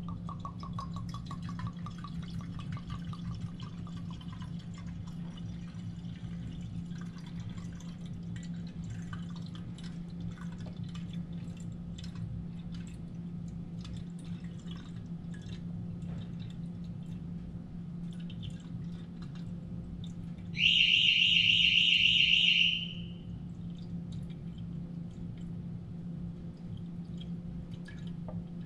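Whiskey glugging and trickling as it pours from an upturned bottle into the neck of a glass decanter, with a quick run of gurgles at the start. About two-thirds of the way through, a loud high electronic beep sounds for about two seconds.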